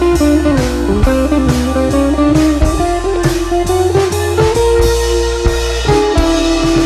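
Background music led by guitar, with drums keeping a steady beat.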